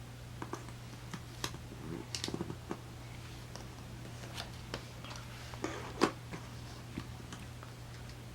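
Small handling sounds of washi tape and planner paper on a desk: scattered light ticks and brief rustles, a quick run of them about two seconds in and a sharper tick about six seconds in, over a steady low hum.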